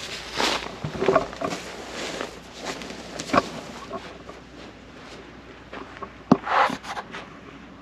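Irregular rustling with light knocks and clicks, the sharpest click about six seconds in.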